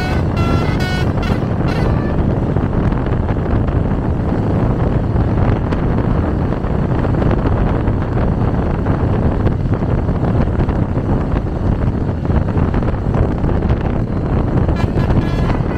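Steady, loud rush of wind on the microphone over vehicle and road noise while moving at speed. A few stepped melodic tones sound in the first two seconds.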